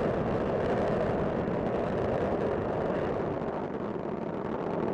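Space Shuttle Discovery's solid rocket boosters and main engines firing during ascent: a steady, deep noise with no break.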